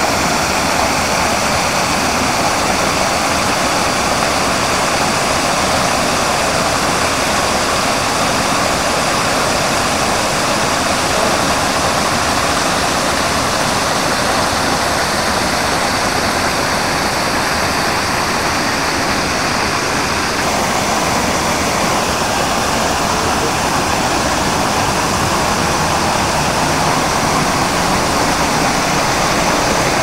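Wide, curtain-like waterfall, about 10 m high and 20 m across, heard close up: a loud, steady rush of falling water, its tone shifting slightly about two-thirds of the way through.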